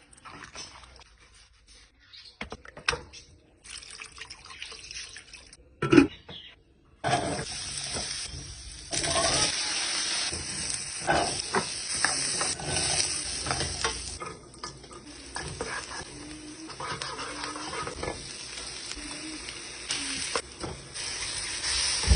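Kitchen cooking sounds: scattered utensil knocks and clicks, one loud knock about six seconds in. Then a steady hiss sets in at about seven seconds and continues, with clinks and scraping on top.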